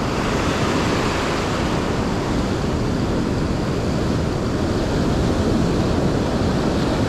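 Ocean surf washing and breaking onto a sandy beach, a steady rushing noise, with wind on the microphone.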